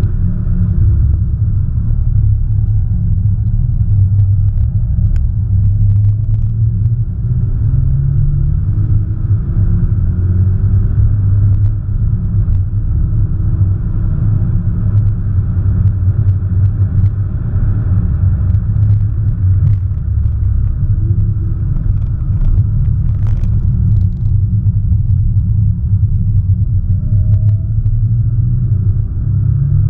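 Audi S1 Sportback's turbocharged 2.0-litre four-cylinder engine driven hard, a heavy steady low rumble with the engine pitch rising several times and dropping back as it pulls through the revs.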